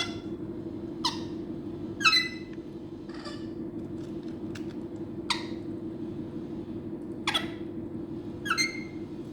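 A bird giving short, squeaky calls that drop sharply in pitch, roughly one every one to two seconds, some of them doubled, over a steady low hum.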